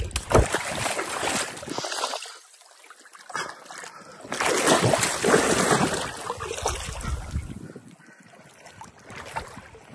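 Shallow water splashing and sloshing as a largemouth bass is held in the water by a gloved hand and released, with a louder stretch of splashing in the middle as the fish kicks free and swims off.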